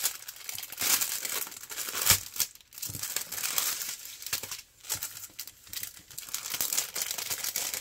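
A clear plastic cellophane packaging sleeve crinkling and rustling in uneven bursts, with short pauses, as it is opened and a card and a strip of sealed drill packets are slid out of it.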